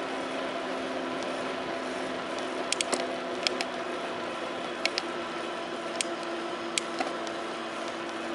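Steady running noise of a bicycle ride with a low steady hum, crossed by sharp clicks from the bike: a quick cluster about three seconds in, then single clicks near five, six and seven seconds.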